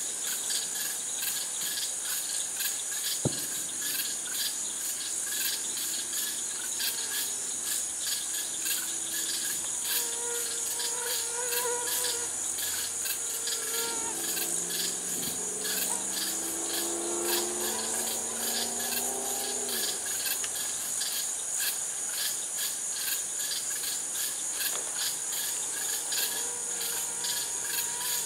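Steady chorus of night insects, a high, rapid, even pulsing that carries on without a break. A fainter, lower pitched sound comes in around the middle and slides slightly down in pitch before fading.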